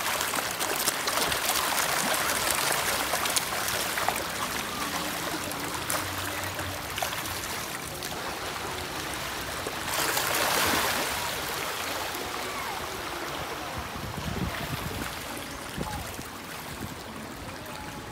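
A dense school of fish in a feeding frenzy, thrashing and splashing at the water's surface: a continuous churning of water with many small splashes, swelling about ten seconds in and easing off near the end.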